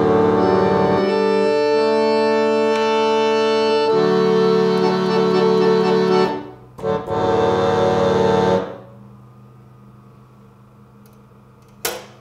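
Farfisa Microrgan reed organ playing sustained, accordion-like chords. They break off about six seconds in, return for one last held chord, and end about three seconds before the end. A low steady hum follows, and there is a single sharp click near the end.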